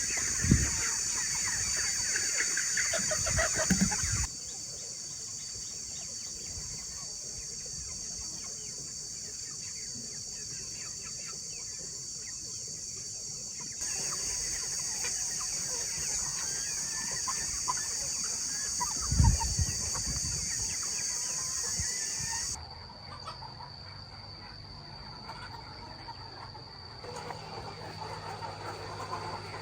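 A flock of chickens clucking and chirping over a steady high hiss, with a few dull thumps. The background changes abruptly several times.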